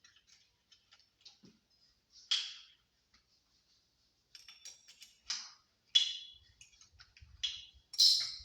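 Tools and small hard objects being handled: scattered light clicks, with about five louder clinks that ring briefly, the last and loudest near the end.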